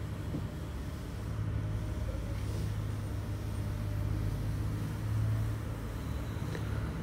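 Double-decker bus engine running with a steady low drone, heard from inside the upper deck.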